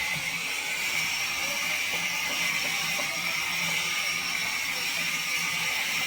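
Steady machine noise from a sawmill running: an even hiss over a low hum, with no change in pace.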